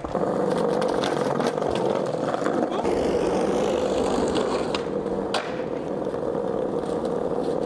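Skateboard wheels rolling steadily over paving bricks and concrete, with a few short clicks and a sharper knock about five seconds in.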